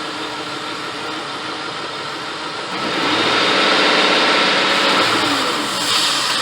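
Ford Crown Victoria P71's 4.6-litre V8 idling with its air intake opened up for a throttle body cleaning, then revved up by hand about three seconds in and held at higher revs, easing back near the end.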